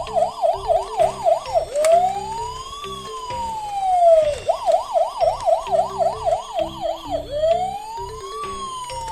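Electronic emergency-vehicle siren alternating a fast yelp, about five quick up-and-down sweeps a second, with a slow wail that rises for about a second and falls away. The cycle plays twice over background music.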